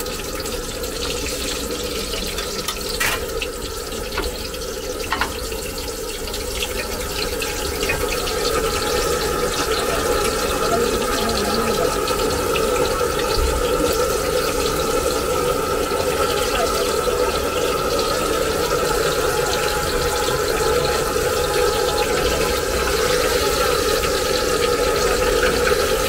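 Batter-coated garlic fritters deep-frying in a large wok of hot oil: a steady sizzling and bubbling that grows somewhat louder about eight seconds in. There are a few sharp knocks in the first five seconds.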